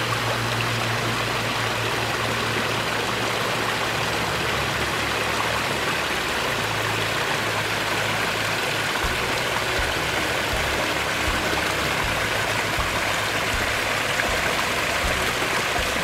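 Steady rush of running water from a small mountain stream, with an uneven low rumble underneath.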